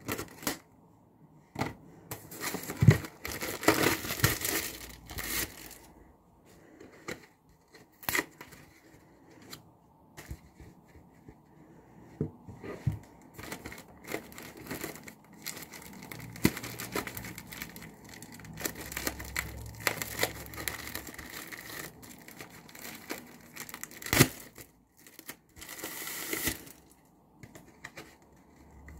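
Clear plastic wrap crinkling and tearing as it is snipped with small scissors and peeled off a large foam car sponge. It comes in irregular bursts of rustling, with a few sharp clicks and snips.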